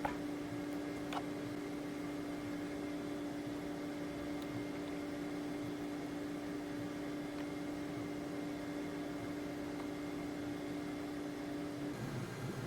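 Flashforge Adventurer 4 3D printer running a test print: a steady hum with one constant tone, with a couple of faint clicks near the start. The tone cuts off near the end.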